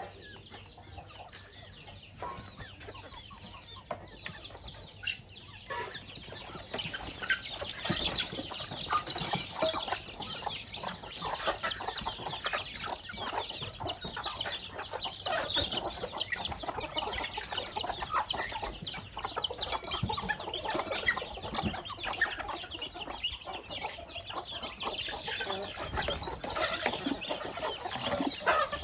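A flock of chickens clucking, with chicks cheeping among them. The calls grow louder and busier about six seconds in, as the birds crowd together to feed.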